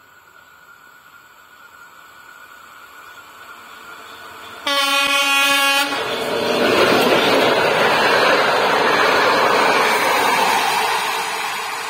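A diesel locomotive hauling passenger coaches approaches, growing louder. About halfway through it sounds its horn once, a steady blast of about a second. It then passes close by with loud, even wheel-on-rail noise from the coaches, which begins to fade near the end.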